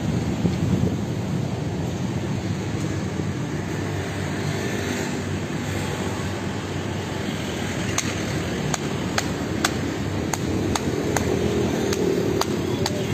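Sharp, regular taps, about two a second starting about eight seconds in, of paving stones being tapped down into their mortar bed, over a steady low rumble of street traffic.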